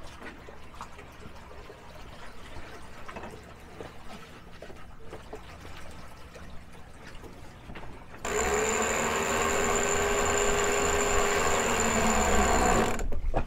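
Faint wind and water noise, then about eight seconds in a sailboat's electric winch motor starts abruptly, runs at a steady whine for about five seconds and stops abruptly. It is hauling in the headsail sheet during a tack.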